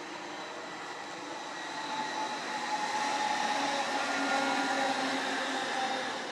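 Kassel RegioTram tram-train passing close by, its wheels rolling on the rails with a steady whine over them; it grows louder to a peak mid-way and fades as it moves off near the end.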